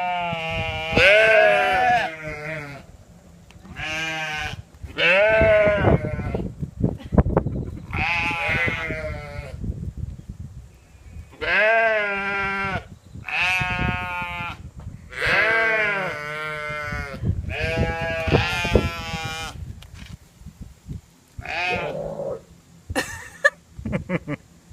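Goat bleating over and over: about ten long, wavering, human-like calls, each around a second long, with short pauses between them.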